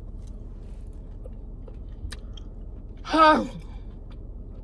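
A person chewing food, with a few small clicks. About three seconds in there is a short voiced sound that falls in pitch.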